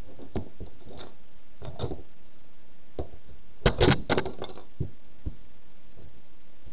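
A red toy race car being crushed under a platform high heel: scattered clicks and knocks as the heel presses and rocks on it, with a burst of sharp cracks about four seconds in as it is stomped.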